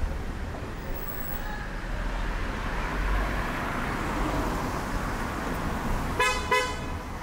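Street traffic with a car driving past, then a vehicle horn giving two short beeps in quick succession near the end.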